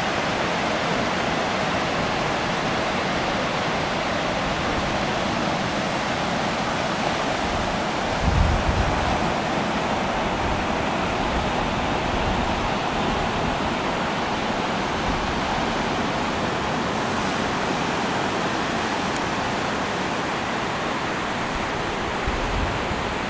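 Ocean surf washing steadily onto a sandy beach. Two brief low rumbles break through, one about eight seconds in and a shorter one near the end.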